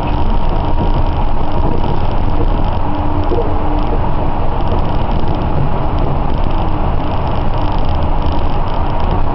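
Kobe Port Liner rubber-tyred automated guideway train running at speed, heard from inside the car: a steady rumble of tyres on the guideway with a faint steady tone over it.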